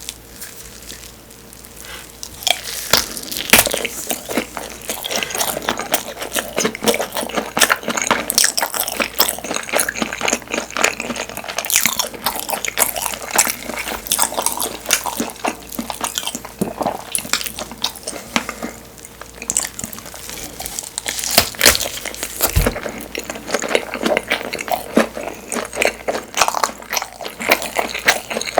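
Close-miked eating sounds: a person biting and chewing Korean blood sausage (sundae), with many moist clicks and crunches.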